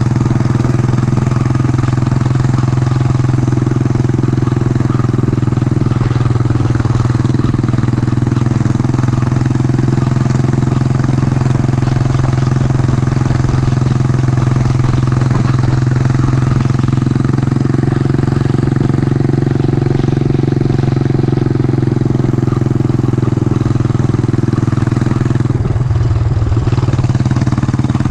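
Yamaha SR400's single-cylinder four-stroke engine running steadily while riding, with a brief dip in the engine note near the end.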